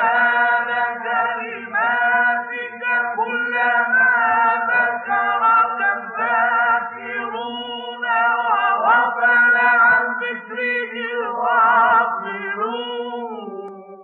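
Unaccompanied voice chanting an Arabic prayer for the Prophet (salawat) in a slow, ornamented melody with wavering vibrato, over a steady low drone; it fades out at the end.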